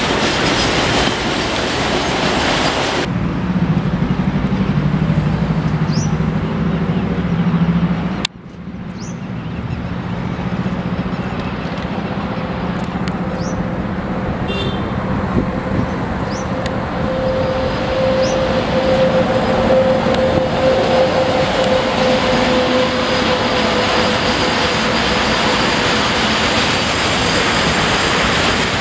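Freight trains rolling past on the rails. First the tail wagons and brake van of a covered-wagon train clatter by. After an abrupt break about eight seconds in, an Indian Railways electric locomotive hauling loaded open coal wagons passes, and the wagons rumble steadily over the track. A steady hum rises in the middle of that stretch.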